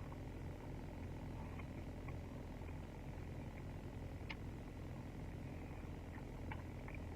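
Steady low engine hum, like a car idling, with a few faint clicks and smacks of someone eating.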